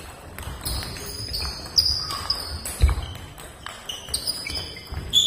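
Table tennis rally: the ball clicking sharply off the bats and the table, about a dozen hits. Short high squeaks of sports shoes on the hall floor sound between the hits.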